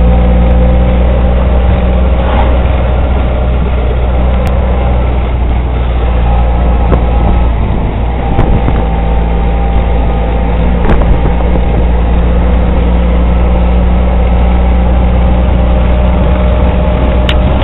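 Auto-rickshaw engine running steadily, heard from inside the passenger cabin, with a strong low hum and a few sharp clicks along the way.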